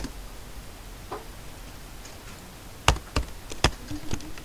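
Computer keyboard and mouse clicks while editing code: one sharp click at the start, then about four quick clicks within a second near the end.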